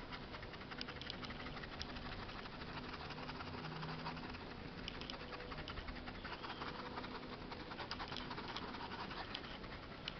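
Fine paintbrush dabbing and scrubbing paint into fabric: a faint, continual scratchy rustle with many small ticks.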